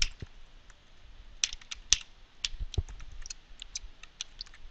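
Typing on a computer keyboard: a run of irregular key clicks, with one louder click at the very start.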